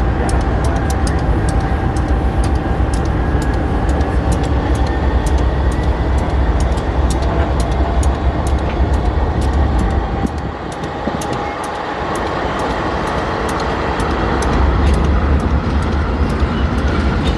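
Freight train rolling past close by: a steady low rumble with rapid sharp clicks from the wheels, and a short dip in loudness about ten seconds in before it builds again.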